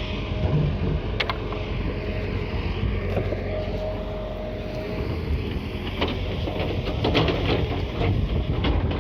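Heavy machinery running with a steady low rumble, with a sharp knock about a second in and a cluster of knocks near the end.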